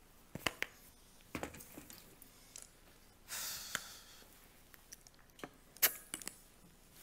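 Handling noise from a handheld microphone being picked up and carried: scattered clicks and knocks, with a short rustle about halfway through and the sharpest click near the end.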